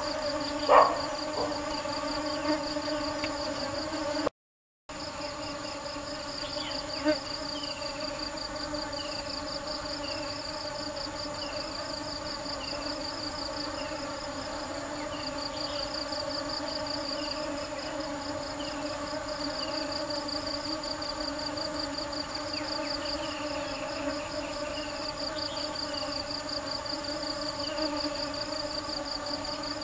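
Honeybees buzzing steadily, with a fast pulsing high insect trill above the buzz. A short burst of louder buzzing comes near the start, and the sound drops out for half a second about four seconds in. In the middle stretch a short falling chirp repeats about once a second.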